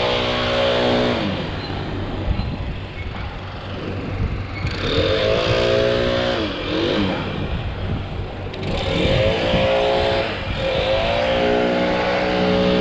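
A chainsaw engine running at speed over a steady background noise. Its pitch dips and recovers a few times, as when the saw is loaded in a cut and then freed.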